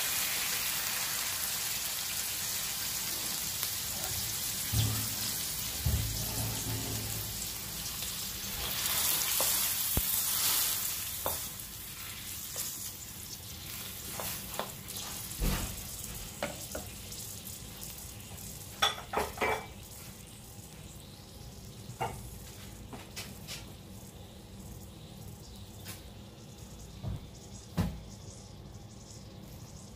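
Pork belly sizzling in hot oil in a wok. After a louder surge of hissing about ten seconds in, water goes in and the sizzle drops to a much quieter level, with a wooden spatula knocking and scraping against the wok now and then.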